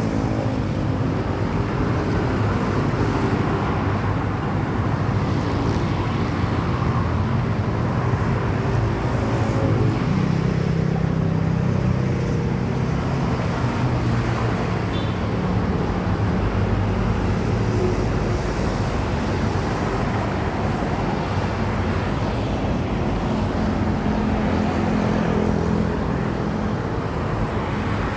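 Road traffic noise: a steady hum of motor vehicles with engines running at a low, even pitch.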